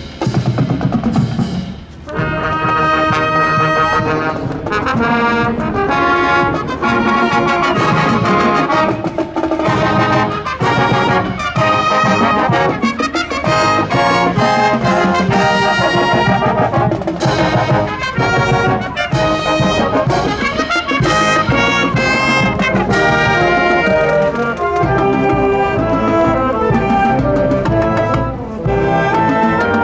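A junior high school marching band playing in a parade, trumpets and trombones carrying the tune over drums. The brass plays on without a break, with sharp drum strikes right at the start.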